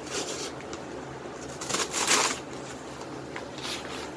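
Rustling and scraping of a shipping package being handled as it is readied to be cut open with a knife, in short bursts with the loudest a little before the middle.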